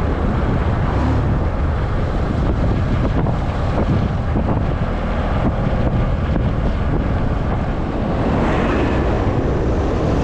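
Steady road noise inside a moving vehicle's cabin: a low rumble of tyres and engine with a hiss of air.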